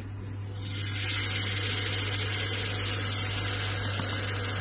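Induction cooker running at full power, heating a pot of water normally: a steady low hum, with a rushing hiss of the cooling fan and heating water building up over the first second and then holding steady.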